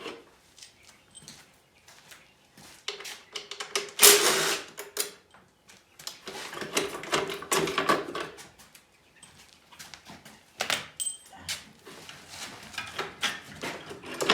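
Hand-tool work on a dirt bike's frame: scattered metal clicks and knocks, with longer bursts of scraping and rustling as bolts are undone and the airbox and subframe are worked loose.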